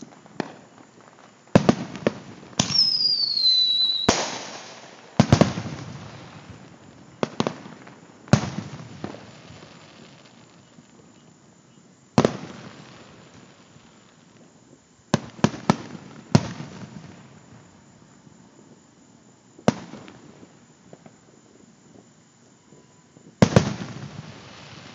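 Aerial fireworks shells bursting at irregular intervals, each a sharp bang followed by a rumbling echo that dies away. Near three seconds in, a whistle falls in pitch and ends in a loud bang.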